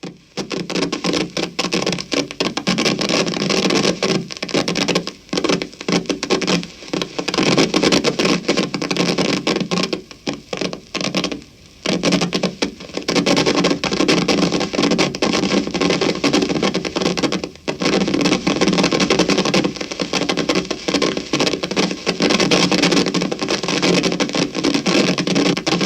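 Amplifier crackle: dense electrical static crackling almost without pause, with a few brief dropouts, the longest about ten to twelve seconds in.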